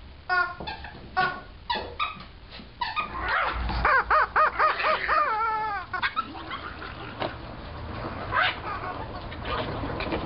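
Chicken toy squawking: a run of short clucking squawks about twice a second, then a long, loud warbling squawk about three seconds in that breaks off around six seconds, followed by a few faint clicks and one short squawk.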